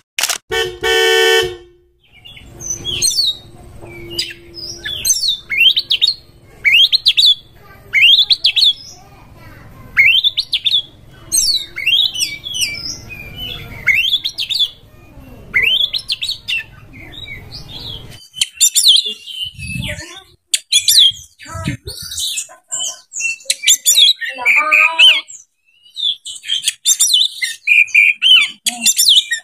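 Oriental magpie-robin (kacer) singing. First comes a series of sharp rising whistled notes about once a second, then a faster, varied warbling song from about two-thirds of the way in. A brief buzzing tone sounds right at the start.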